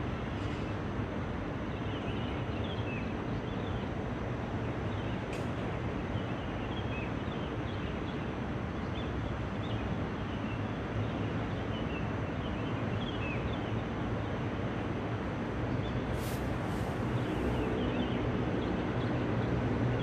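Steady city background: a low, even rumble of distant traffic with small birds chirping high above it throughout, growing slightly louder near the end.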